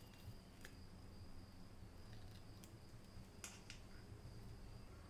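Near silence with a few faint clicks of small metal parts on a miniature model bicycle being handled and screwed together, two close together about three and a half seconds in, over a steady faint high-pitched whine and low hum.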